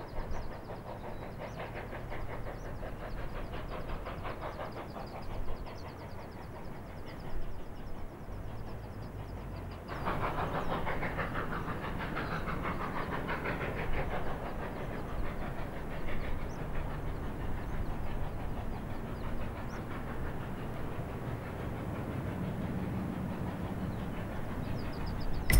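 Furka line HG 3/4 steam tank locomotive running with its train on an adhesion section, with a rapid, even rhythmic beat and wheel noise on the rails. The sound jumps louder about ten seconds in.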